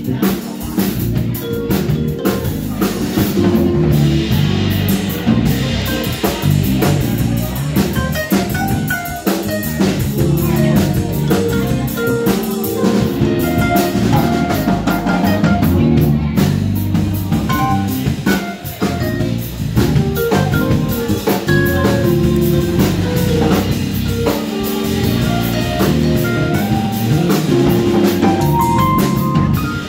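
Live band playing with a drum kit, electric bass and keyboard, the drums keeping a steady beat under pitched instrumental lines.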